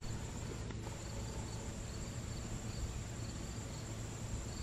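Insects, likely crickets, droning steadily at a high pitch, with a faint chirp repeating about twice a second, over a low steady rumble.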